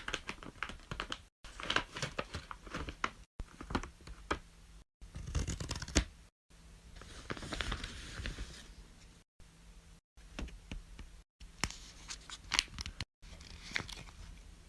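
Fidget toys being handled: a string of sharp clicks and snaps with stretches of crinkling and rustling, broken off by brief dead silences several times as short clips are cut together.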